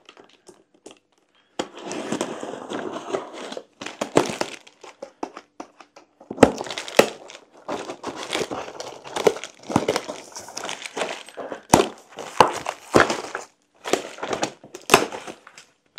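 A cardboard parcel being unpacked by hand: its packaging crinkles and rustles in irregular bursts, mixed with small knocks and clicks, starting about a second and a half in.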